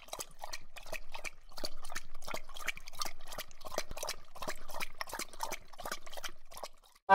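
Logo-intro sound effect: a rapid, uneven patter of small clicks and watery drip-like pops that stops just before the end.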